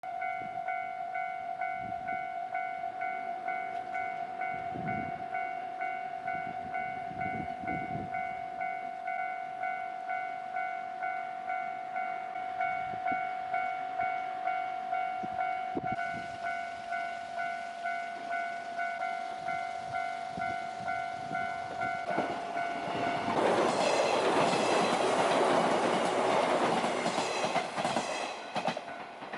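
Japanese level-crossing warning bell ringing its regular "kan-kan" strokes. A train passes through the crossing from about 23 to 28 seconds in, its rushing noise covering the bell, and its wheels clack over the rail joints near the end.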